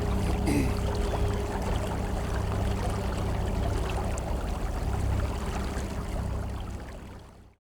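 Steady outdoor water ambience from a small boat on a river: an even rushing and trickling noise with a low rumble under it, with one short knock about half a second in. It fades out over the last second.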